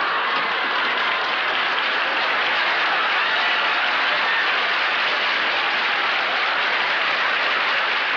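Sitcom audience applause, steady and even, greeting the closing gag of the episode.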